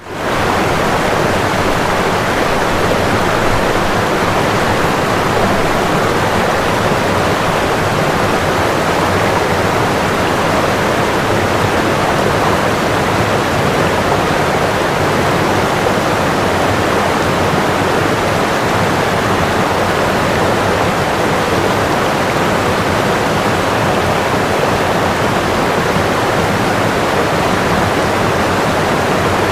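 Running water rushing steadily, an even hiss with no breaks or single splashes.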